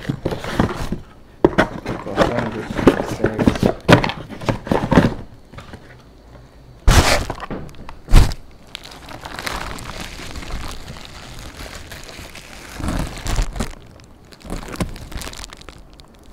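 Hands working through a cardboard box and its bubble-wrap and plastic packaging: busy crinkling and rustling with scattered knocks, and two loud thunks about seven and eight seconds in.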